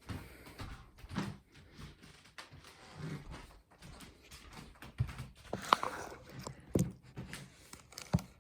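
Irregular knocks, bumps and rustling of things being handled and moved, as a drawer or door is opened while searching for clothes.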